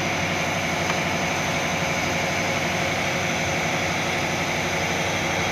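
Steady machine drone with a constant high whine running through it, holding level throughout.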